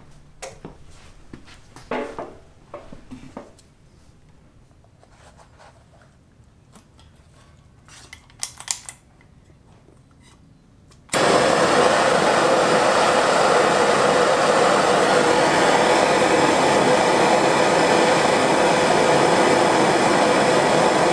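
A few faint clicks and knocks of handling. Then, about halfway through, a hand-held gas torch lights with a sudden loud, steady flame hiss that holds for about ten seconds and cuts off near the end.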